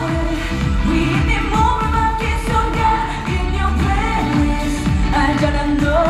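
K-pop song performed live through a concert PA: a female voice sings into a handheld microphone over an amplified backing track with a steady beat.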